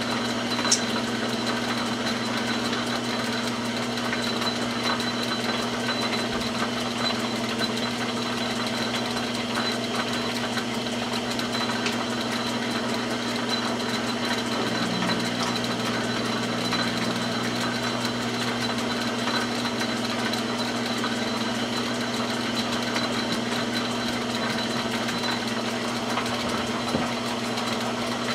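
Metal lathe running steadily during single-point threading passes on a rifle barrel's muzzle, a constant motor hum with a faint high whine. A brief click sounds about a second in.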